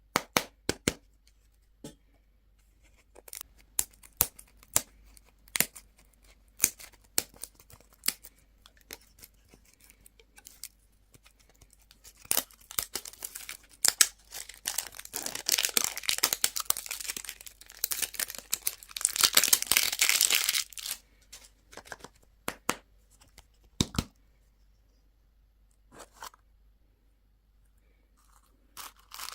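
Candy and toy packaging being opened: scattered sharp clicks and taps, then a long stretch of wrapper tearing and crinkling through the middle, and a few more clicks before it goes quiet.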